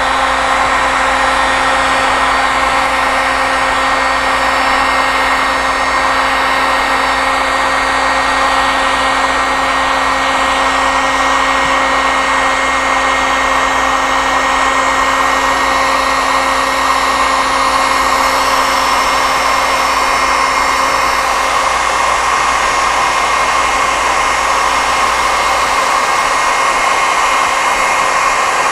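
Electric heat gun running steadily, blowing hot air onto the end of a plastic K-style rain gutter to soften it for bending. It makes an even whir with a constant pitched hum.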